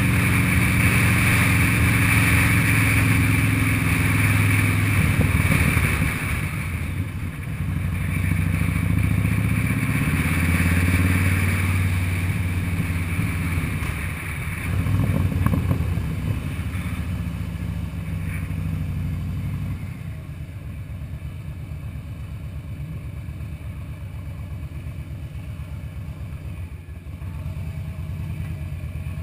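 Harley-Davidson Fat Boy's V-twin engine running as the bike is ridden, with a hiss over it for the first six seconds. The revs swell a few times, then the engine settles lower and quieter for the last nine seconds or so as the bike slows.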